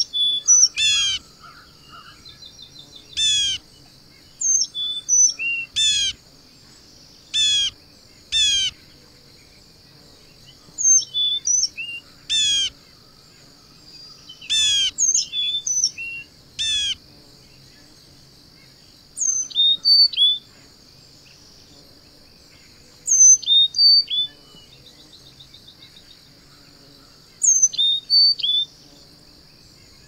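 Songbirds calling: loud, steeply falling calls repeated about a dozen times through the first half, then short high notes in small clusters, over a steady high insect drone.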